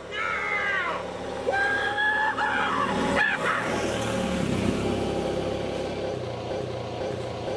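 A four-wheeler's engine running steadily. Over it, for the first few seconds, come high wailing cries that slide down and up in pitch.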